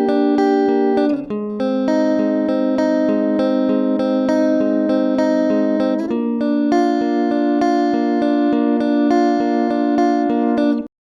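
Instrumental music on a Stratocaster-replica electric guitar, holding sustained chords that change about a second in and again about six seconds in, then stopping abruptly near the end.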